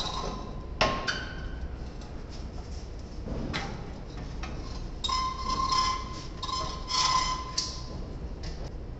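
Thick steel angle bar being slid under a truck cab's floor, metal against metal: a sharp clank about a second in, then several stretches of scraping and clinking, the later ones with a brief ringing tone.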